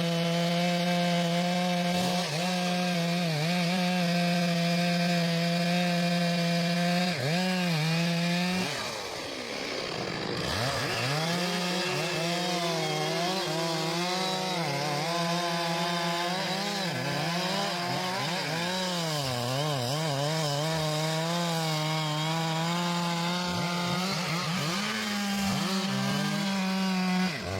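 Large two-stroke chainsaw running at high revs, cutting wood. It holds a steady pitch for about eight seconds, drops off briefly, then comes back with its engine speed wavering up and down over and over as the load on the chain changes.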